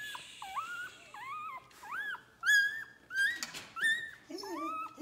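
Day-old puppy crying in a string of short, high squeaks and whines, one after another, each rising and falling in pitch, with lower whines joining near the end.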